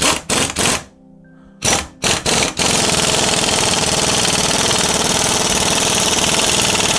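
Corded electric impact wrench hammering on a puller's centre bolt. It starts with a few short bursts, then about two and a half seconds in it hammers continuously, forcing the hub of a Reliant Regal rear axle off its tapered half shaft.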